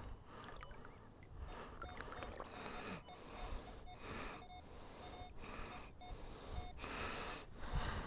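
Water swishing in an even rhythm, about three times every two seconds, as a metal detector is swept through shallow water, with faint short electronic beeps from the detector now and then from about two seconds in.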